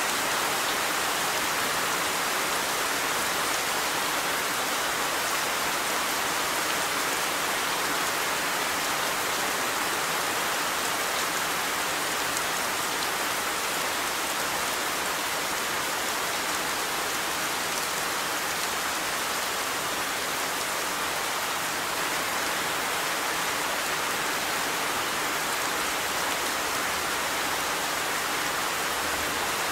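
Steady rain falling, an even hiss of many drops pattering on surfaces.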